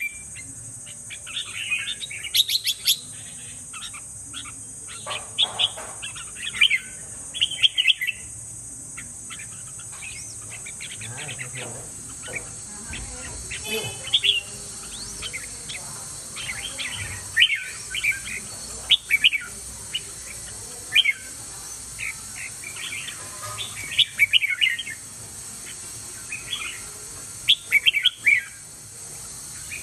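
Caged red-whiskered bulbul singing: short, bright whistled phrases in bursts every few seconds, with pauses between.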